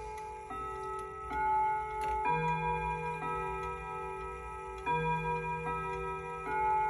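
Vintage Gazo wall clock chiming: its hammers strike a melody on the chime rods, a new ringing note about every second, two of the notes louder and deeper, over the steady tick of the movement.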